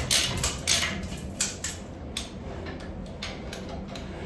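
Ratchet spanner clicking as bolts are run in on the heat exchanger mounting, in quick strokes. The clicking thins out midway, with a few more clicks later on.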